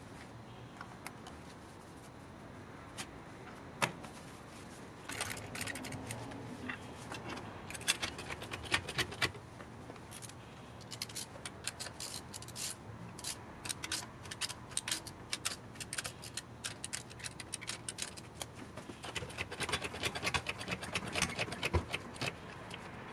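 Irregular metallic clicks, clinks and small rattles of hand tools and metal parts being handled, coming in clusters.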